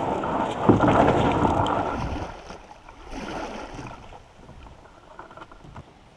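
A plastic kayak hull scraping and grinding over river gravel as the boat is pushed off into the water, with one sharp knock under a second in. Then fainter water and paddle sounds as it floats free.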